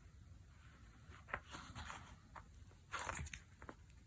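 Faint handling of leather and small metal snap parts: a few soft clicks and rustling scrapes, the loudest cluster about three seconds in.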